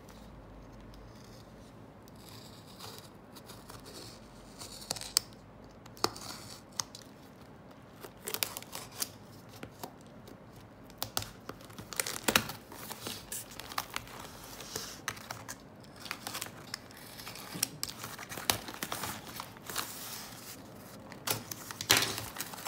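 Snap-off utility knife slicing through packing tape on a cardboard box, the tape crackling and tearing in quick sharp clicks that grow busier as the cut goes on. Near the end the cardboard flaps are pulled open.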